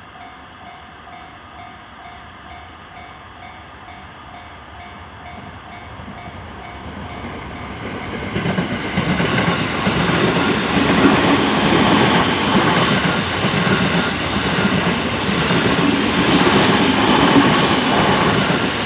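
Japanese level-crossing warning bell ringing in a steady repeating pattern. From about seven seconds in a train approaches and passes, its running noise growing loud and drowning out the bell.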